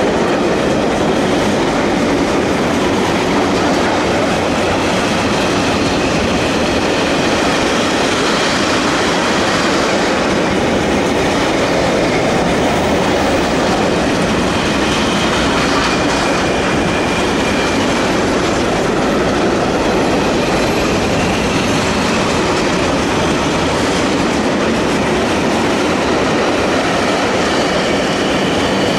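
Intermodal container freight train wagons rolling past close by: a steady, loud rumble of steel wheels on the rails that runs on unbroken.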